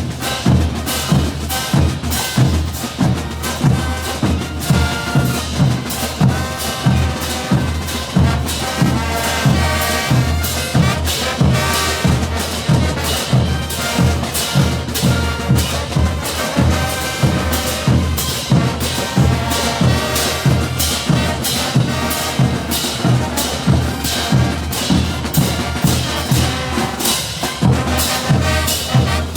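Bolivian brass band playing a morenada: a brass melody over a steady, heavy drum beat.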